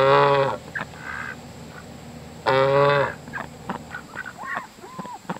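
A white domestic goose honks twice, two loud half-second honks about two and a half seconds apart. Softer short calls from other birds of the flock follow in the second half.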